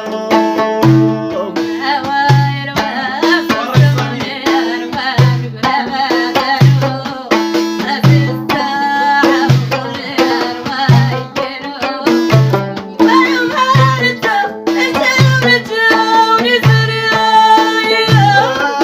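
Folk song with a steady low hand-drum beat under plucked-string melody and singing.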